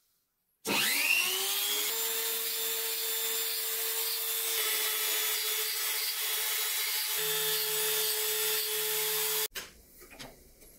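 Handheld rotary multitool with a rasp bit spinning up with a rising whine about a second in, then running at steady high speed as it rasps at a cast-iron part; its pitch shifts slightly a couple of times under the load, and it stops suddenly near the end.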